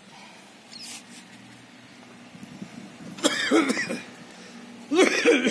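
Two short bursts of a person's voice, about three and five seconds in, over a quiet background.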